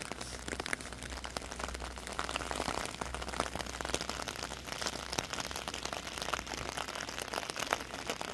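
Heavy rain falling on hard surfaces: a steady hiss dense with close drop ticks, over a low rumble.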